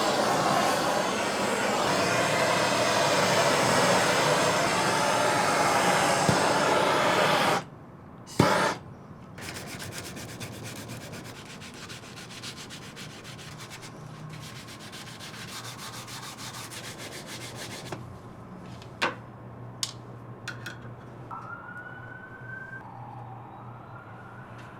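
Wood being sanded or rubbed by hand, a steady scratchy noise that stops abruptly about seven and a half seconds in. A sharp knock follows, then quiet background with a few clicks and a faint rising tone near the end.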